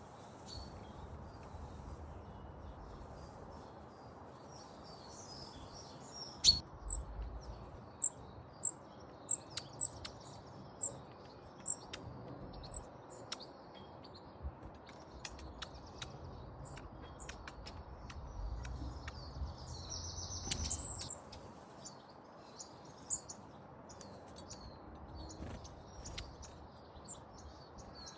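Small garden birds at a bird table calling and chirping, with one bird repeating a short high chirp about every two-thirds of a second for several seconds, and a busier burst of calls near the end. A single sharp knock about six seconds in is the loudest sound.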